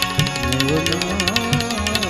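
Live Gujarati folk devotional music: a man singing a long, bending melodic line over held harmonium notes and percussion keeping a steady beat.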